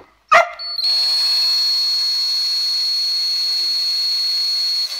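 A dog barks once, then a cordless drill runs steadily for about four seconds with a constant high whine, spinning a mixing attachment in a glass of liquid, and stops.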